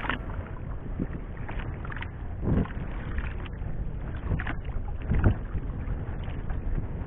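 Water lapping and slapping against the hull of a small fishing boat at sea, over a steady low rumble of wind on the microphone. Two louder slaps or knocks stand out, halfway through and about five seconds in, the second the loudest.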